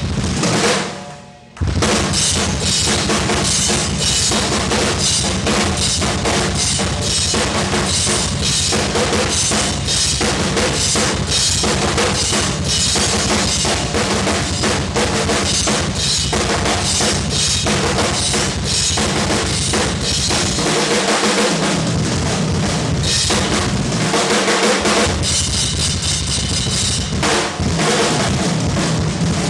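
DrumCraft drum kit played fast and dense, with continuous bass drum, snare, tom and cymbal strokes. It breaks off for a moment about a second in, and the bass drum drops out briefly twice in the last third.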